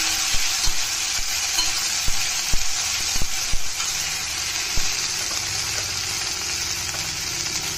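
Chopped onions, tomatoes and ginger-garlic sizzling steadily as they fry in a stainless steel kadai, stirred with a steel spatula that scrapes and knocks against the pan now and then.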